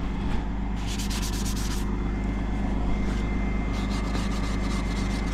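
Frost and ice being scraped off a van window in short runs of rapid scraping strokes, over the steady hum of the van's idling engine.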